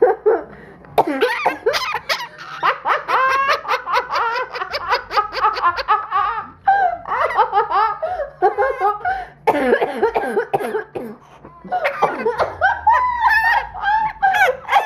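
Blue-crowned conure mimicking human laughter: long runs of quick repeated 'ha' notes, broken by short pauses between bouts.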